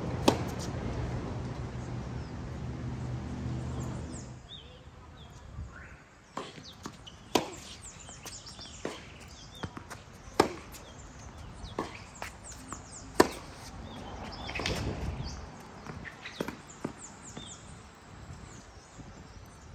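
Tennis ball struck back and forth by rackets in a rally on a hard court: sharp pops of racket hits, the loudest ones every few seconds from the near player, with fainter bounces and distant hits in between.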